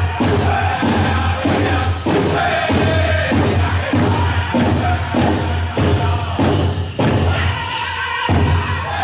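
Powwow drum group performing a chicken dance song: a large shared drum struck in a steady beat about twice a second under loud group singing.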